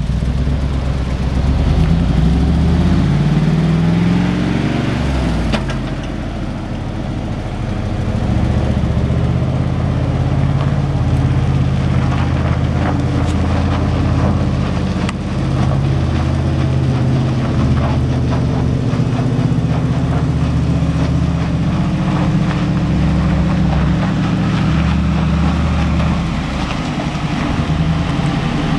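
1997 GMC four-door utility-bed pickup's engine running as the truck is driven about, its pitch rising and falling with the throttle in the first few seconds, then holding fairly steady.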